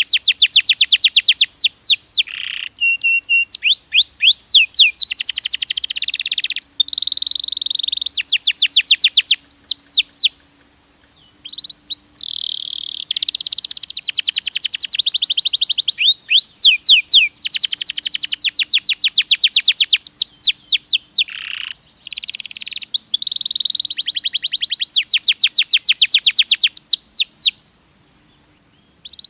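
Domestic canary singing: long, fast trills of evenly repeated high notes strung into phrases of several seconds, with a short break about ten seconds in and another near the end.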